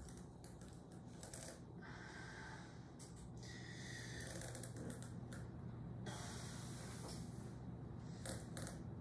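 Kitchen knife being forced down through a raw spaghetti squash's hard rind, with faint scattered crunches and clicks, and strained breathing from the effort.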